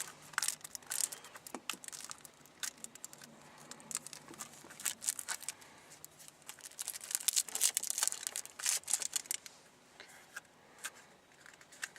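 A small paper-and-cardboard novelty package being handled and opened by hand: irregular crinkling and tearing with many small crackles, busiest in the middle and later part.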